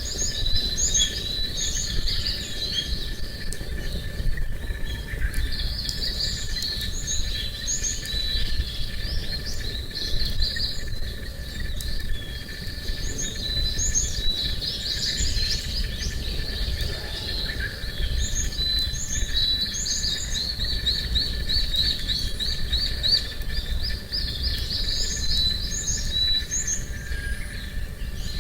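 Small birds singing outdoors, with short chirping phrases repeated over and over, along with a faint steady high insect-like tone and a steady low rumble underneath.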